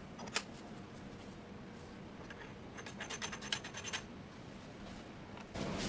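Faint handling noise from a stereo microscope body being seated and adjusted in its metal bracket by gloved hands. There is a single click just after the start, then a quick run of small clicks and scraping about three seconds in. A steady background hiss comes in near the end.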